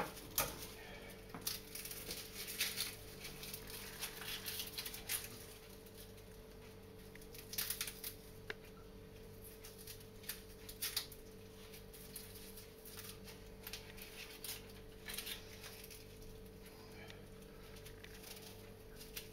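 Scattered light taps and clicks of hands and a knife working at a kitchen cutting board, some in small clusters, over a steady low electrical hum.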